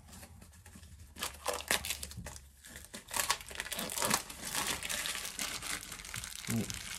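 Small clear plastic bag crinkling and rustling in irregular bursts as it is handled and opened, starting about a second in.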